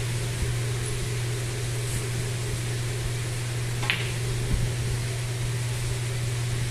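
Steady low hum of fans, with a single sharp click about four seconds in as a snooker cue strikes the cue ball, followed by a soft knock.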